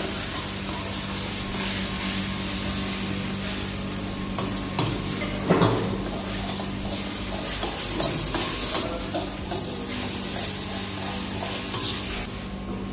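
Kway teow (flat rice noodles) sizzling in a wok over a gas flame while a metal spatula stirs and tosses them, with scattered scrapes and clinks of the spatula against the wok.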